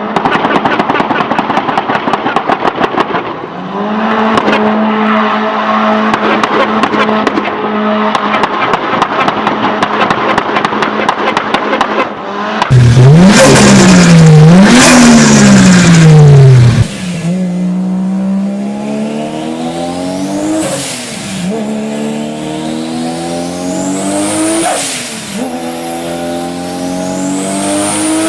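Turbocharged car engine held at steady revs with rapid anti-lag crackling and popping. About 13 seconds in, an engine is revved hard up and down a few times, very loud. After that a car accelerates through the gears, its pitch climbing and then dropping at each shift.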